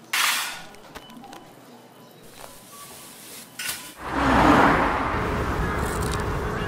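A short crinkle of a plastic-wrapped package being handled, then about four seconds in the steady low rumble of a car driving, heard inside the cabin, with a rush of noise as it begins.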